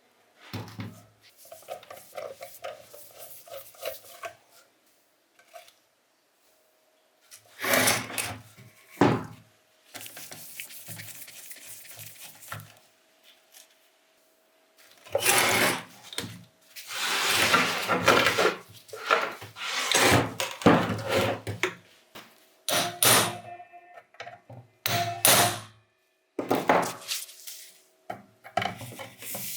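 Metal parts and hand tools being handled while a rusted bench grinder is taken apart: irregular clinks, knocks and scraping, in clusters with short pauses, busiest in the second half.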